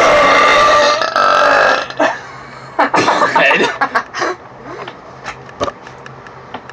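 A boy's long, very loud burp lasting about two seconds after gulping a drink, followed by a shorter burst about three seconds in.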